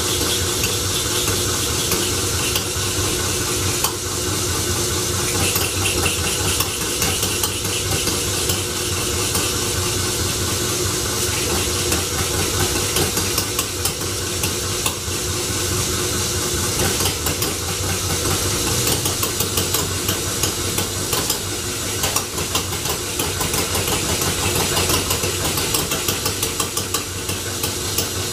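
Homemade Scotch yoke flywheel engine being turned over by belt from a motor, a steady hum under fast crackling ticks, while it tries to fire without running on its own. The owner puts this down to timing, choke and perhaps compression issues still to be worked out.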